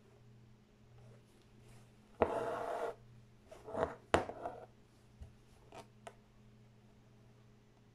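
Embroidery thread being drawn through fabric stretched taut in a wooden hoop: a sharp needle click and then a scratchy rasp lasting most of a second, about two seconds in. More short rasps and another click follow around four seconds, then a few faint ticks.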